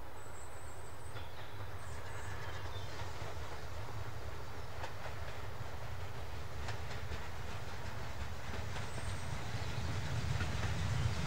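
Steam locomotive running tender-first with its passenger train as it approaches: a low rumble of wheels on the rails that grows louder near the end, with a few light clicks.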